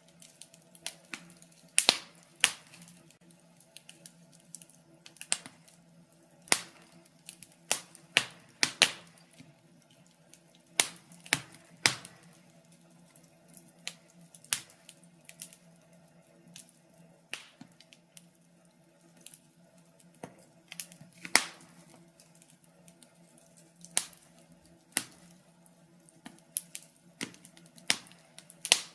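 Wood fire in a fireplace crackling: irregular sharp pops and snaps, a handful of them much louder, over a faint steady low hum.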